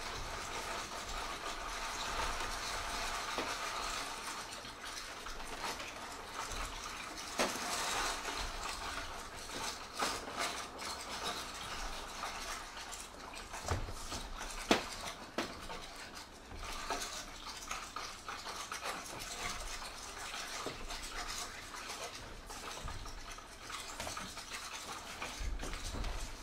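Experimental percussion score of scraped and rubbed objects: a steady noisy scraping texture with no clear pitch, broken by several sharp clicks, the loudest a little past the middle.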